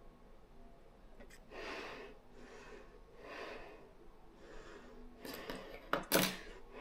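Three slow, soft breaths close to the microphone, then near the end a few sharp clicks and rustling as scissors cut and handle the small piece of material.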